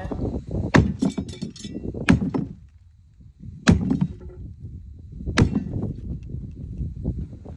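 Sledgehammer striking the wall of a wooden shipping crate, four loud blows about a second and a half apart, with smaller knocks between them.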